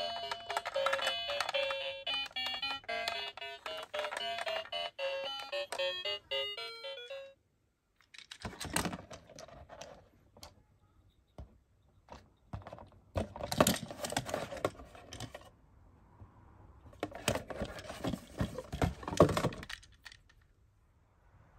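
Electronic beeping melody from a toy ambulance's push-button sound unit, cutting off suddenly about seven seconds in. After a pause come several stretches of clicking and rustling as plastic toys and their packaging are handled.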